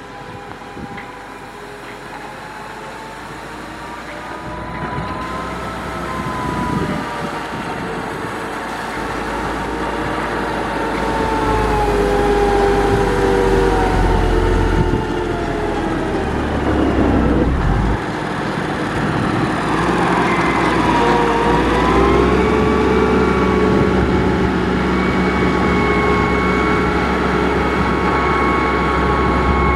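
Heavy construction machine's diesel engine running, its pitch drifting up and down as it works. It grows louder over the first dozen seconds, then holds steady.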